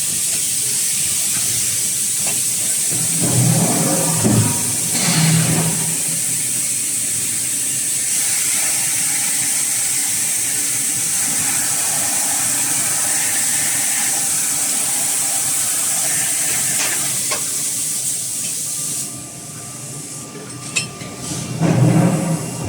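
Loud, steady hiss of spray and air on a hot-forging line, with a low machine hum swelling briefly a few seconds in. The hiss drops away near the end, leaving a few sharp clicks and knocks.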